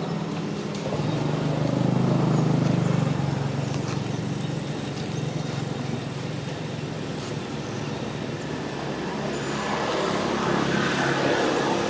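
A motor vehicle's engine running close by: a low hum that swells about two seconds in, fades, and grows again near the end.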